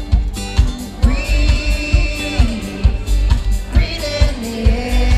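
Live band music heard from the crowd at a loud open-air concert: a steady drum beat about twice a second, with a voice holding long sung notes, the first beginning about a second in and another near the end.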